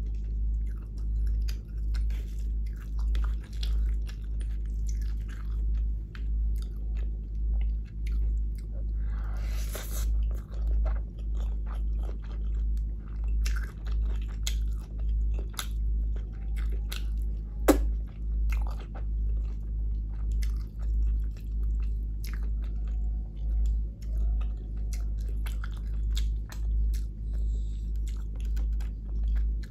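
Close-miked chewing of a mouthful of biryani rice and potato-cauliflower curry eaten by hand, steady and rhythmic, with many small wet mouth clicks. One sharp click a little past the middle is the loudest sound.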